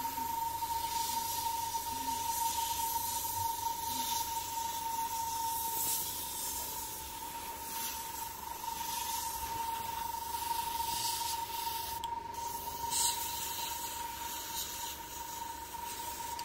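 Gravity-feed airbrush spraying make-up paint close up, hissing in spurts that swell and fade every second or two as the trigger is worked. A steady high-pitched tone runs underneath.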